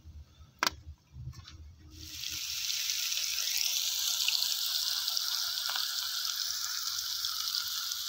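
A low rumble with a single sharp crack, then, from about two seconds in, minced meat frying in oil in a hot pan: a steady, loud sizzle.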